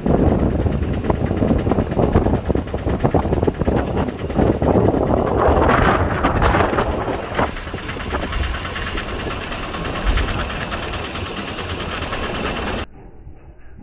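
Engine of a river pontoon ferry running under way, with heavy wind buffeting the microphone. About a second before the end the sound drops suddenly to a much quieter, duller background.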